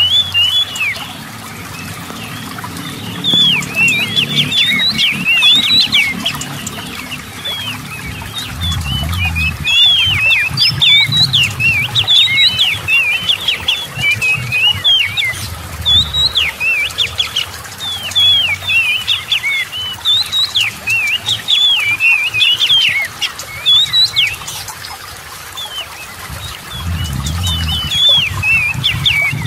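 Oriental magpie-robin singing a fast, unbroken string of short whistled notes that slide up and down, over the low rush of water spilling over a weir.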